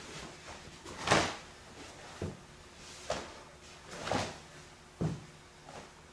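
Five short, sharp slaps and thuds about a second apart from a barefoot karateka's strikes, checks and kicks in a gi while performing a kenpo kata slowly; the loudest comes about a second in.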